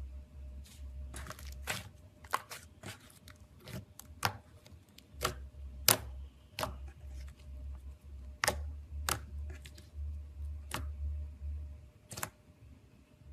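Slime being worked by hand, giving a run of sharp, irregular pops and crackles, a couple every second, over a faint low rumble of handling.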